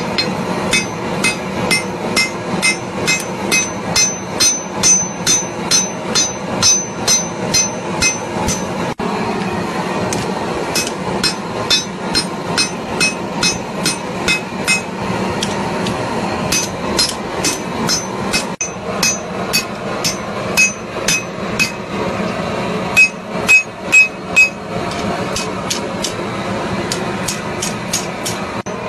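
Hand hammer striking a red-hot steel bar on a steel anvil block, blow after blow in a quick steady rhythm of about two to three strikes a second, each with a bright metallic ring. The hammering breaks off briefly a few times, with a few heavier blows about two-thirds of the way in.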